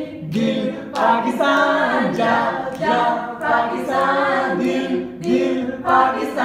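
A group of Chinese students singing a Pakistani song together, unaccompanied, in held phrases with short breaks between them.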